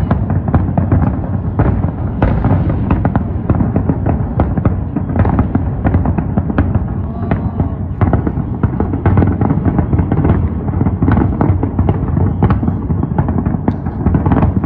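Fireworks display: a dense, continuous barrage of bangs and crackling bursts, one after another with no pause.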